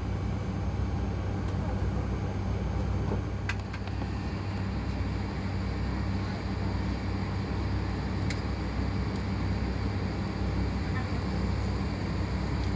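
Steady low drone inside an Airbus A320-200 cabin during pushback from the gate, with a couple of faint clicks.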